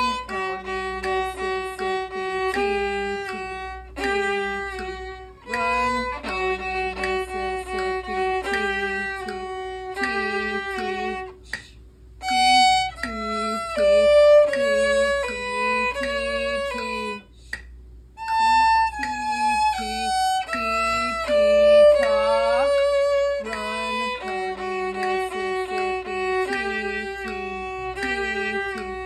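A solo violin played with the bow: a melody of separate, evenly played notes in phrases, with short breaks about 12 seconds in and about 18 seconds in.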